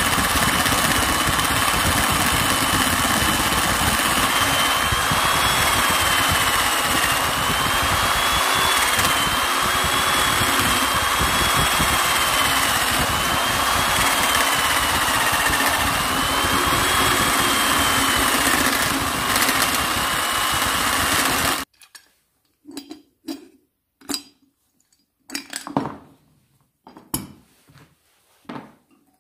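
A power tool spinning a cutter that mills out the aluminium crankcase of a Honda Dio scooter, to make room for a 52.6 mm big-bore crankshaft. It runs steadily with a whine that wavers up and down in pitch. It cuts off suddenly about 22 seconds in, followed by a few light knocks and clinks as the parts are handled.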